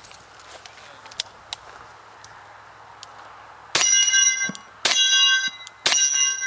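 A little past halfway, a Smith & Wesson 610 revolver fires three shots about a second apart. Each shot is followed by the bright ring of a hit steel plate.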